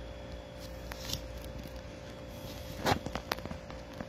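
A few short, sharp clicks or knocks, the loudest about three seconds in, over a faint steady hum.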